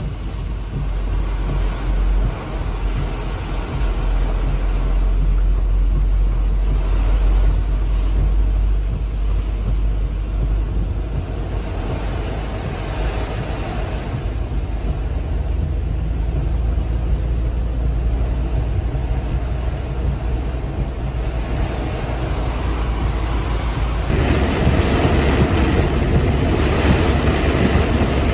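Heavy rain and strong wind buffeting a moving van, heard from inside the cabin: a steady, loud rushing noise with a deep rumble of wind. About 24 seconds in, it cuts abruptly to a louder, brighter rush of rain and tyres on the flooded road.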